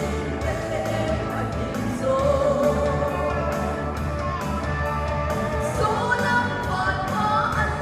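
Song with a singer's voice over a band backing with a steady beat and heavy bass.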